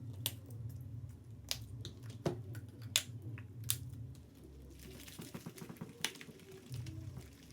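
Scattered sharp clicks and taps of things being handled on a tabletop, with a run of quick soft crackling about five seconds in, over a steady low hum.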